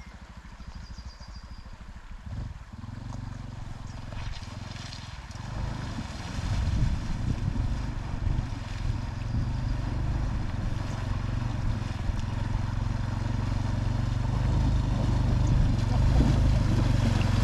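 Honda CT125's single-cylinder engine running, growing steadily louder through the clip.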